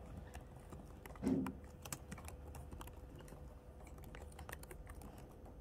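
Irregular light key clicks of someone typing on a computer keyboard, with one short muffled sound about a second in.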